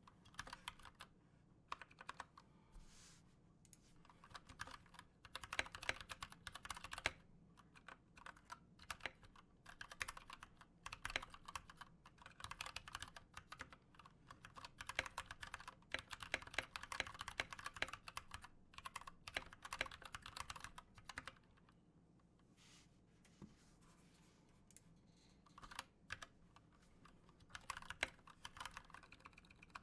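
Typing on an Anne Pro 2 mechanical keyboard in stock form, with unlubed Gateron Brown switches and stabilizers: rapid runs of keystrokes with brief pauses between them. The sound is pingy and rattly, with the stabilizers vibrating, the signature of unlubed, unmodded switches and stabs.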